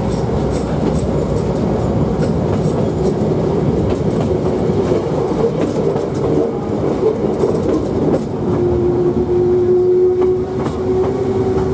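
Hakone Tozan Railway train running, heard from inside the carriage: a dense rumble with scattered clicks from the wheels on the rails. About 8 s in, a steady whine joins it.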